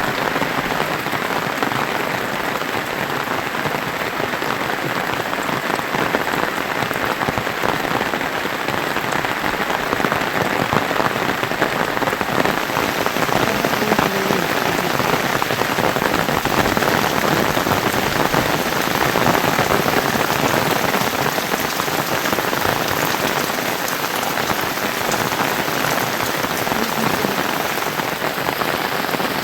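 Steady rain falling on surfaces: a dense, even hiss of drops at a constant level.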